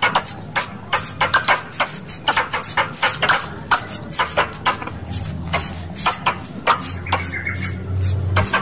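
Squirrel calls: a fast, continuous run of short, sharp chirps, each sliding down in pitch, several a second.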